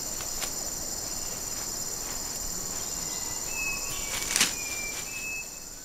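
Rainforest ambience: a steady high drone of insects, with a few short thin whistled bird notes past the middle and one brief sharp crackle about four seconds in. It fades near the end.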